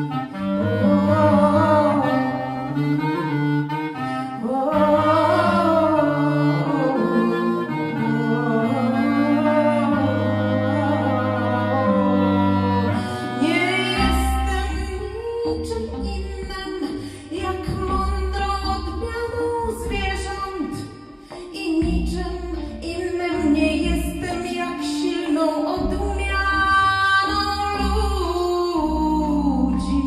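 Live experimental music: a clarinet plays over electronic synthesizer sounds. About halfway through, a deep, pulsing bass beat comes in.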